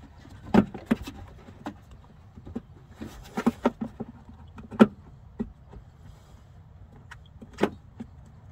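A series of irregular knocks and clunks from the plastic washer reservoir, with its new washer pump, being pushed and worked into place behind the wheel arch. The loudest knock comes about five seconds in.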